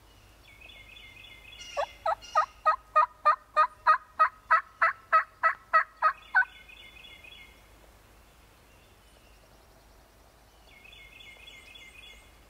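A loud series of about fifteen turkey yelps, evenly spaced at roughly three a second, starting about two seconds in and stopping about four and a half seconds later. A fainter, higher-pitched songbird phrase repeats before and after the yelps.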